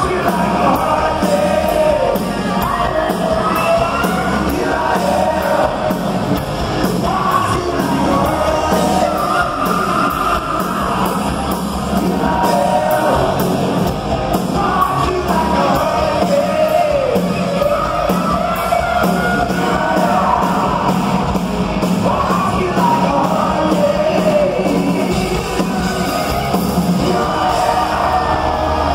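Heavy metal band playing live at full volume: distorted electric guitar and a steady drum beat under a male lead singer's high sung melody.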